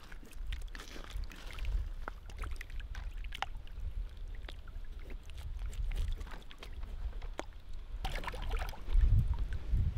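Back of a knife scraping scales off a whitefish in quick, short strokes, each a small scratchy tick, over a steady low rumble. About eight seconds in, water splashes as the fish is rinsed.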